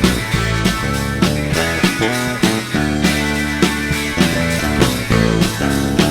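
Live rock band playing an instrumental passage: electric guitar, bass guitar and a drum kit keeping a steady beat, with no singing.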